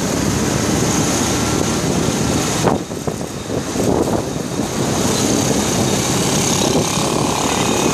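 Wind buffeting the microphone of a moving motorcycle, over the sound of its engine and the traffic; the rush drops for about a second, some three seconds in.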